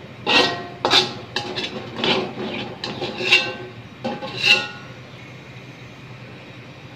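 Metal spatula scraping and clanking against a thin silver wok as the last fried noodles are scraped out onto a plate. A quick series of knocks and scrapes, with the wok ringing briefly, stops about five seconds in.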